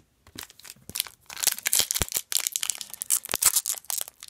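A trading-card pack wrapper being torn open and crinkled by hand, with dense crackling starting about a second in and a couple of dull knocks.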